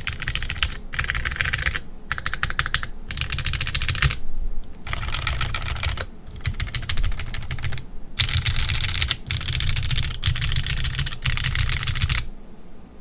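Typing on a QK80 mechanical keyboard with lubed Gateron X linear switches, an aluminium plate and GMK keycaps: fast keystrokes in short runs with brief pauses between them, stopping just before the end.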